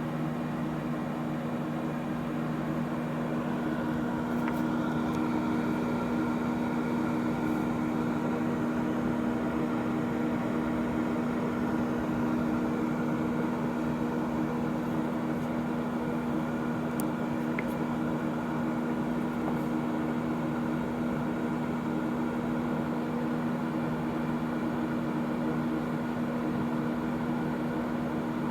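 1988 Sanyo EM-161S microwave oven running: a steady electrical hum over the whir of its cooling fan, with a few faint ticks.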